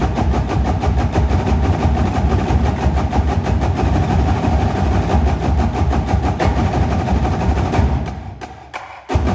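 Marching drumline of snare drums, tenor drums and bass drums playing a fast, dense pattern of strokes with deep bass drum hits. The playing dies away about eight seconds in and starts again a second later.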